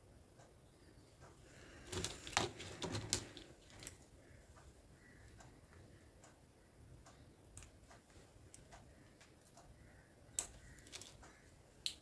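Faint clicks and taps from handling a stone chain and scissors, with a cluster of louder clicks about two to three seconds in and one sharp click near the end.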